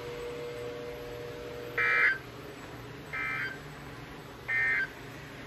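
NOAA Weather Radio Emergency Alert System end-of-message data tones: three short buzzy bursts about 1.3 seconds apart, the first loudest, signalling the end of the severe thunderstorm warning. A faint steady tone runs under the first two seconds.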